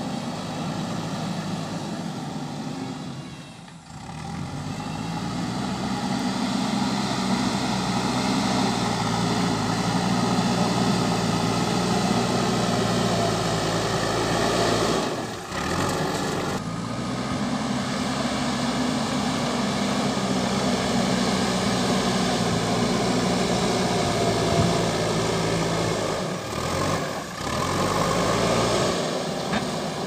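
JCB 3DX backhoe loader's diesel engine running under load as it pushes and spreads loose soil with its front bucket. Its sound dips briefly three times.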